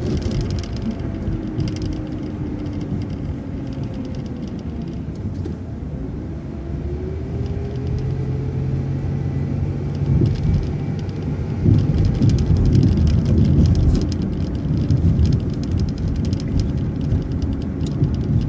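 City transit bus driving along a street: engine and transmission whine falls as it eases off, then rises again about six seconds in as it picks up speed. The rumble grows louder through the second half.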